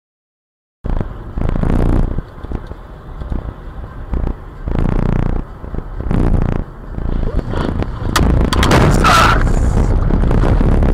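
After a brief silence, car tyre and road noise on a wet road, swelling several times. About eight seconds in comes a road crash: a cluster of bangs and scraping, the loudest part.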